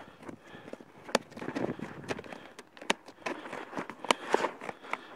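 Scissors snipping through a flexible dark sheet of roofing material, with the sheet rustling and crackling as it is handled. There are sharp snaps about a second in, near three seconds and twice around four seconds.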